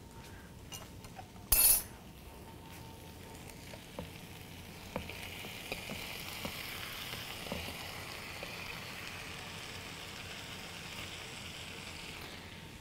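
Sliced tomatoes scraped off a wooden cutting board into a hot skillet of cooked zucchini and onion, which sets off a steady sizzle from about five seconds in, with light clicks of a utensil against the board and pan. A single sharp knock, the loudest sound, comes about a second and a half in.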